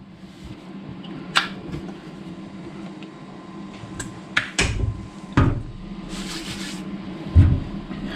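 A series of knocks and clunks, as of cupboard doors and objects being handled in a small room, over a steady low hum, with a brief hiss near the end.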